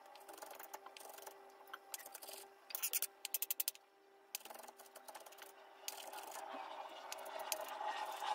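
Chef's knife chopping soft avocado flesh on a wooden cutting board: light scattered knife taps against the board, with a quick run of chops about three seconds in.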